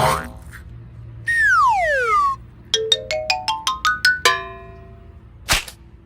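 Cartoon sound effects: a falling whistle-like glide, then a quick rising run of about nine short xylophone-like notes, and a short swish near the end.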